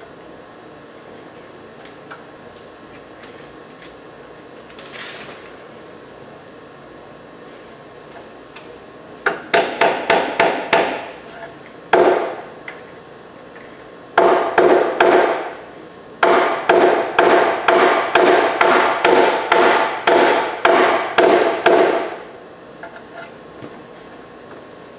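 Hammer blows on the sheet-metal rocker panel of a Chevy Silverado crew cab, struck from underneath: several runs of quick strikes, about three a second, each with a short metallic ring, starting about nine seconds in and stopping a few seconds before the end.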